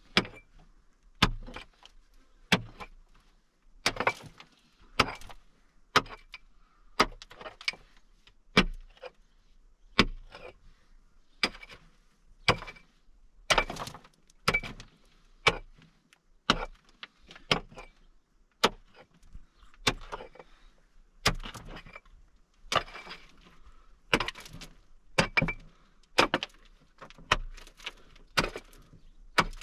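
A hand pick striking into a packed earth and stone wall over and over, about one blow a second with an uneven rhythm. Each blow is a sharp chopping crack.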